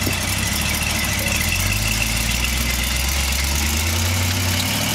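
Jeep CJ's Vortec 350 small-block V8 running at low revs, its pitch stepping up a little about a third of the way in and then rising slowly.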